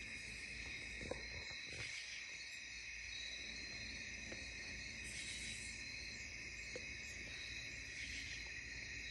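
Steady high-pitched chorus of night insects, unbroken throughout.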